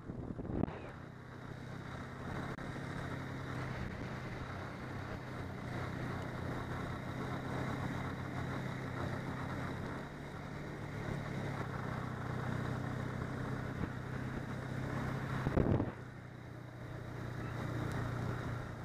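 Snowmobile engine running steadily at cruising speed, heard from on board the moving machine, with track and wind noise over it. Short louder surges of noise come shortly after the start and again near the end.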